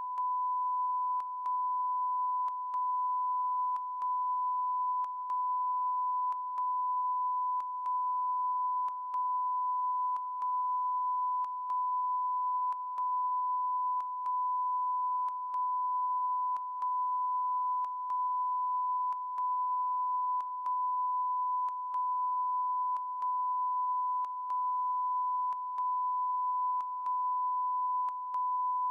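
A never-ending beep on the broadcast sound: one continuous, unchanging tone at a single pitch. It is broken by a brief click and dip in level about every 1.3 seconds.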